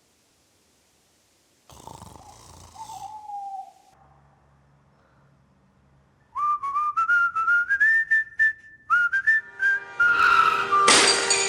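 A whistle climbing in small steps, breaking off and starting a second rise. Music comes in near the end.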